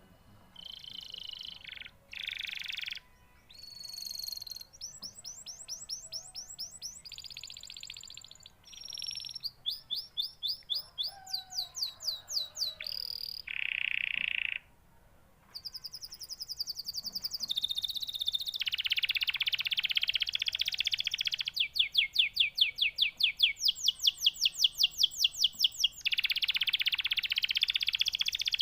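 Domestic canary singing a long, varied song. Phrases of fast repeated notes and trills alternate with sustained buzzy rolls, with short breaks between phrases, and the song grows louder over the second half.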